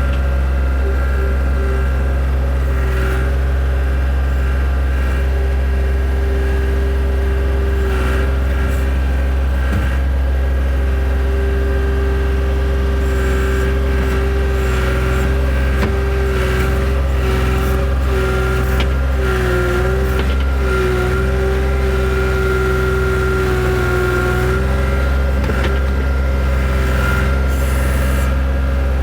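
Skid steer engine running steadily under load as the machine works through mud, with a steady whine over it and scattered short knocks and clanks.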